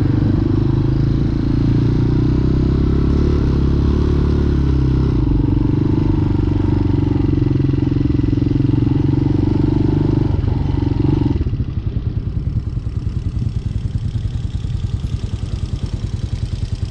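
Hawk 250 motorcycle's single-cylinder engine running on the move. About eleven seconds in, its steady tone drops away to a lower, quicker pulsing beat.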